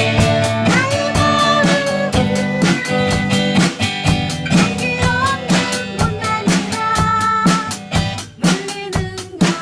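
Band music: a drum kit keeping a steady beat with guitar chords over it.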